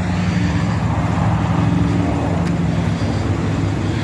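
Motor vehicle engine running steadily at low speed, a low even hum that holds its pitch.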